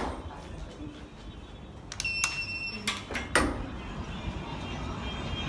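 A single short electronic beep about two seconds in, lasting under a second, among several sharp clicks and knocks; the loudest knock comes a moment after the beep.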